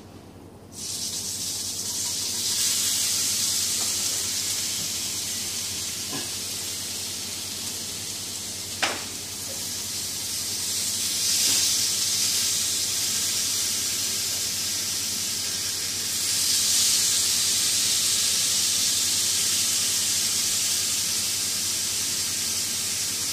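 Hamburger patties sizzling in a hot frying pan: the sizzle starts suddenly about a second in as the meat goes into the pan and swells louder a few times, with one sharp click in the middle.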